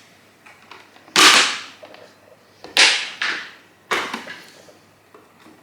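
Three sharp clacks, spaced roughly a second apart, each trailing off quickly: hard objects being handled and set down.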